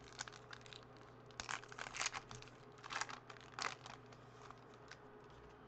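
Foil wrapper of a baseball trading-card pack crinkling and tearing as it is ripped open by hand, in short irregular bursts.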